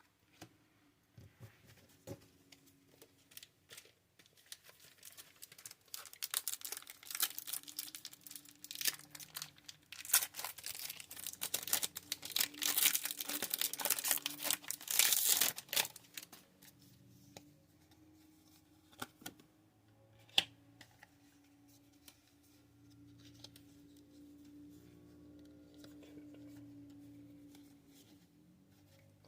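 A Pokémon card booster pack's foil wrapper being torn open and crinkled by hand, with scattered small clicks and rustles. The crackle is thickest and loudest in the middle stretch, then dies back to light handling.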